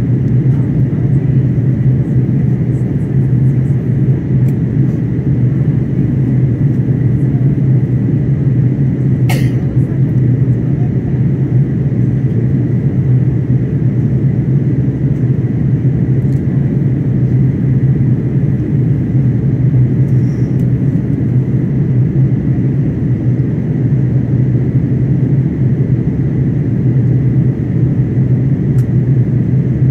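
Steady cabin drone of an Airbus A330-900neo heard from a window seat: its Rolls-Royce Trent 7000 engines and the airflow make a deep, even rumble with a low hum. A single short sharp click sounds about nine seconds in.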